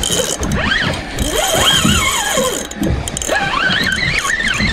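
Spinning reel's drag paying out line to a hooked fish: a whine that rises and falls in pitch in several long sweeps.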